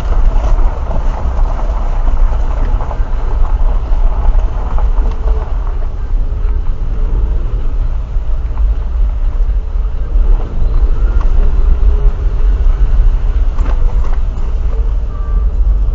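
A car driving, its engine and tyres making a steady, loud low rumble.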